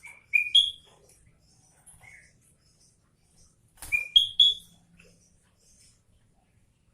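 Caged bulbul calling: two short phrases of three clear whistled notes, each stepping upward in pitch, about four seconds apart, with a single softer note between them.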